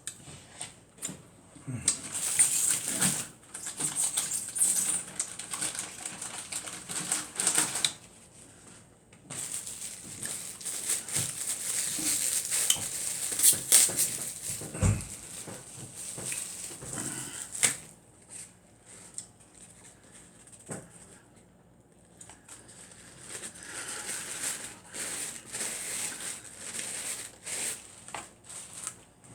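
Close-up eating sounds: wet chewing and crackly, clicky mouth noises in long stretches, with a few quieter pauses.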